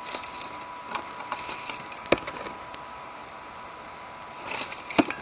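Handling noise: rustling with a few sharp clicks, the loudest about two seconds in and near the end, over a faint steady whine.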